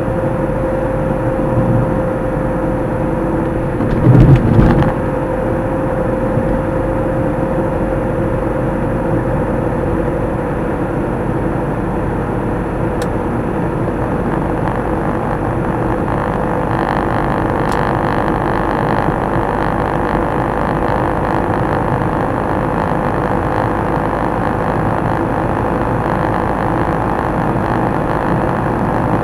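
Steady road and engine noise of a car driving, heard from inside the cabin, with a steady hum that fades away over the first half. A brief loud thump comes about four seconds in.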